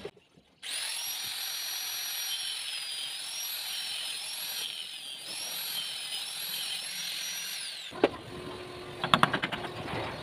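Small electric angle grinder cutting a reddish wooden handle piece: a steady high whine that sags a little in pitch under load, then winds down and stops about eight seconds in. A few sharp knocks and a quick run of taps follow near the end.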